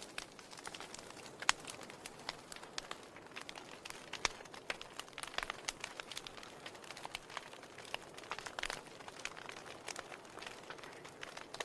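Wood fire burning in a fireplace: logs crackling with irregular sharp pops and snaps, several a second and uneven in strength, over a soft steady hiss of the flames.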